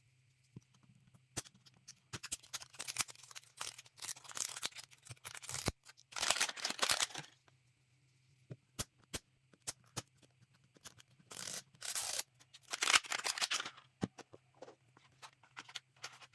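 Plastic packaging crinkling and tearing in bursts of a second or two, with scattered clicks and taps between them: a MiniVerse mini-food capsule and its wrapped parts being unwrapped by hand.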